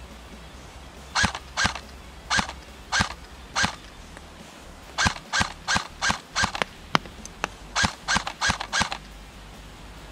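LCT AK-12 airsoft electric rifle (AEG) firing single shots on semi-auto, each a short snap of the gearbox cycling. Five spaced shots come first, then after a pause a quicker string of about ten.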